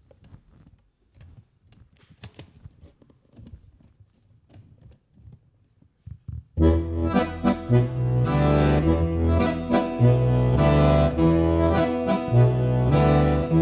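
Faint shuffles and small knocks, then about six and a half seconds in a Pigini chromatic button accordion and an acoustic guitar start playing together, the accordion holding chords over low bass notes.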